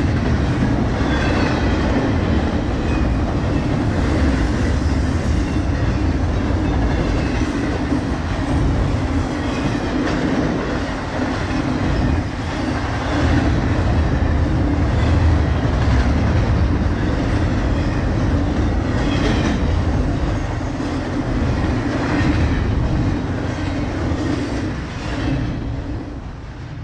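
Intermodal freight train's cars rolling past close at speed: a steady rumble and rush of steel wheels on rail with repeated wheel clacks. A thin high wheel squeal comes in briefly about two-thirds through, and the sound dies away near the end.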